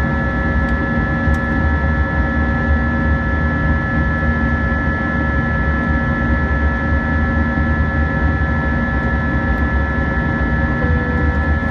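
Airbus A320's IAE V2500 turbofan engines droning steadily as heard inside the cabin during the climb: a low rumble with several steady whining tones over it.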